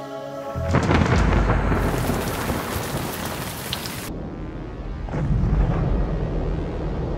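Storm sound effect: a loud thunderclap and rolling rumble over a hiss of rain. The hiss drops away suddenly about four seconds in, and a second rumble swells shortly after.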